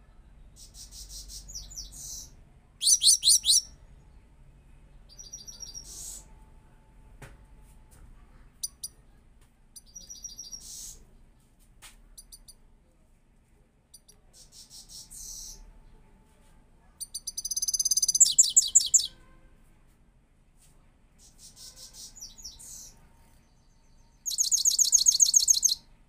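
Caged goldfinch singing: a string of high, twittering song phrases a second or two long with short pauses between, the loudest rapid trills about three seconds in, around eighteen seconds, and again at the end.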